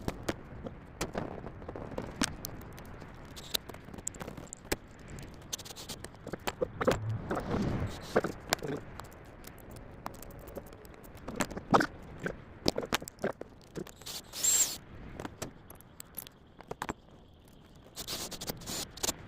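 Hand work on a lawn tractor: scattered clicks, knocks and scrapes of metal tools and parts being handled, with a longer scrape about seven seconds in and a brief sharp rattle near fourteen seconds.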